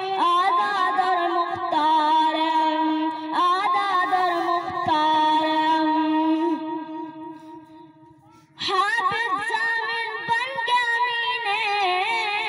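A boy singing a patriotic Urdu song into a microphone in long, wavering held notes. One note is held and fades almost to silence about eight seconds in, then the singing starts again.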